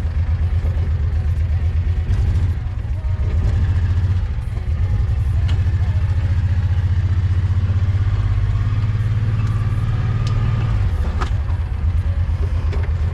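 An engine idling steadily with a fast, even low pulsing; for a few seconds past the middle it runs a little fuller and smoother.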